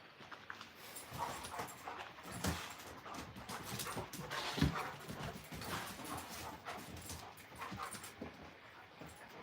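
Two Alaskan Malamutes play-fighting: irregular scuffling and short dog vocal noises, with a louder thump about four and a half seconds in.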